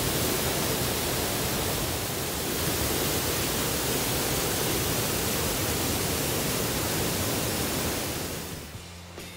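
Waterfall rushing steadily, a constant hiss of falling water. It fades away near the end as quiet music comes in.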